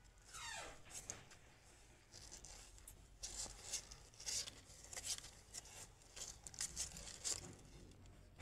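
Faint, irregular rustling and scratching of newborn kittens squirming and suckling against their mother cat's fur on the cardboard floor of the box, with a short falling squeak about half a second in.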